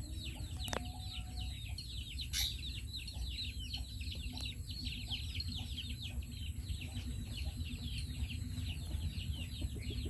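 A continuous chorus of quick, high chirps from many small birds or chicks, each chirp sliding downward, several every second, over a low steady rumble. A brief louder noise cuts through about two and a half seconds in.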